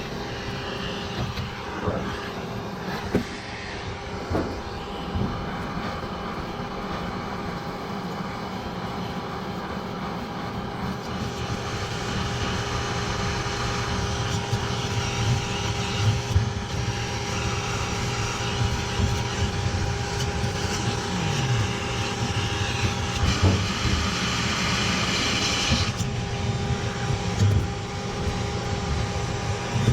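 Vacuum cleaner running steadily with a constant motor whine, its rushing grows louder from about eleven seconds in until near the end as it sucks debris out of a plugged condenser coil. A few scattered knocks.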